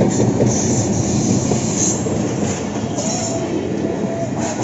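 Pakistan Railways diesel-hauled passenger train passing close by: the locomotive goes past, then the coaches roll by with a loud, steady rumble of wheels on the rails. A thin wheel squeal comes and goes from about three seconds in.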